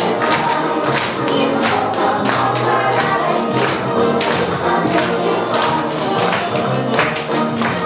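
Lively recorded music with a steady beat.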